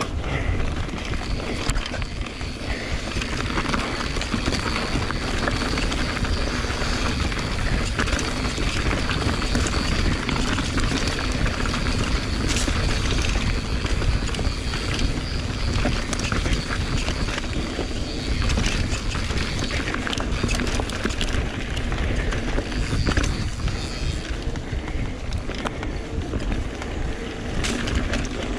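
Mountain bike descending a dirt singletrack: wind buffeting the microphone and tyres rolling over dirt and roots, with the frame and parts rattling in many short knocks.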